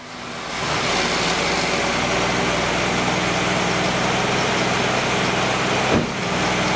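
1965 Ford Falcon's straight-six idling steadily with the air cleaner off, the open Autolite 1100 carburetor's intake hiss loud over the engine note. A short knock about six seconds in.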